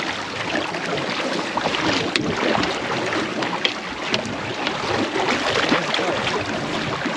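Water sloshing and splashing around a small boat, with wind on the microphone and a few short sharp knocks and splashes.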